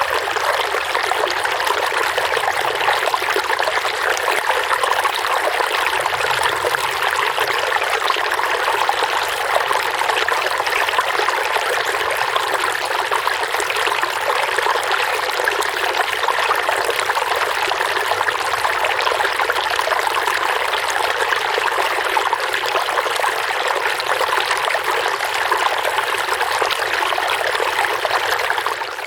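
Running water babbling steadily, like a small stream trickling over stones, an even unbroken flow.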